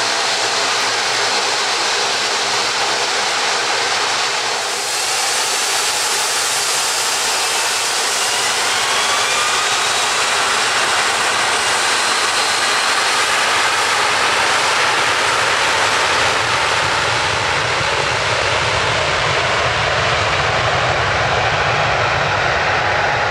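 Jet airliner's engines at high power for takeoff, a loud steady noise with faint whining tones rising in pitch, and a deep rumble building in the second half.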